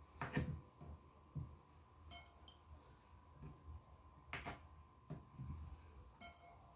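A kitchen knife knocking against the countertop as it cuts through small rounds of soft cheese. There are a few short knocks: the loudest about half a second in, another just after a second, and more around four and a half and five seconds in.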